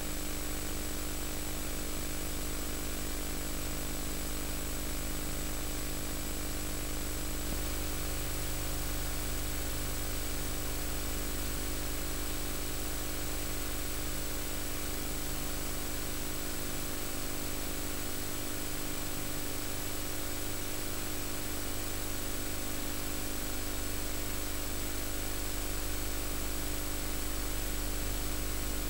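Steady hiss with a low mains hum and buzz and a faint high-pitched whine: the noise of an otherwise empty VHS tape audio track.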